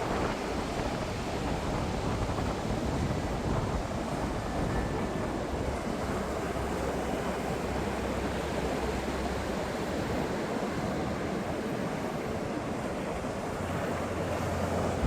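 Ocean waves breaking in a steady wash of surf, with wind rumbling on the microphone.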